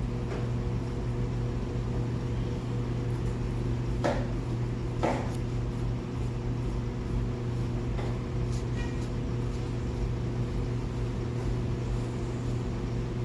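A steady low mechanical hum, with two sharp knocks about a second apart midway through and a fainter click a few seconds later.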